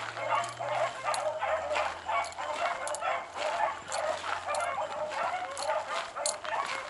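A pack of hunting beagles baying, many short overlapping cries a few times a second, as the pack runs its trail through the brush.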